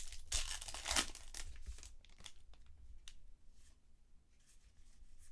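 Foil trading-card pack wrapper tearing and crinkling for about the first second and a half, followed by light rustles and small clicks of cards being handled.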